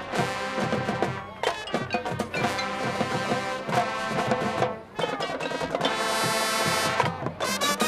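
High school marching band playing: the brass section sounds held chords over drums and percussion, with a brief drop in volume about five seconds in.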